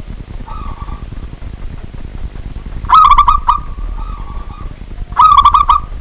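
Zebra dove (perkutut) cooing: two loud phrases of rapid staccato coos, each about half a second long, a little over two seconds apart, with fainter single coos before and between them.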